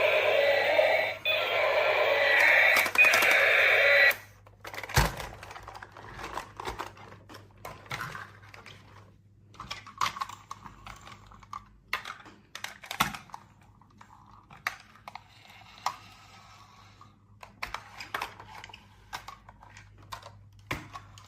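Music for about the first four seconds, cutting off abruptly. After that come irregular light clicks and taps of small toy pieces being unpacked and handled.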